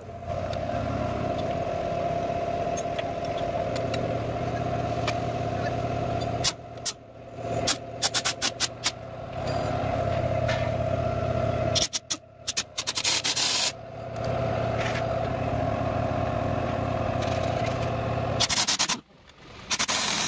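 Pneumatic impact wrench driving the threaded rods of a coil-spring compressor on a car's front strut, in several short bursts of rapid hammering. A steady motor hum runs underneath, and air hisses near the end.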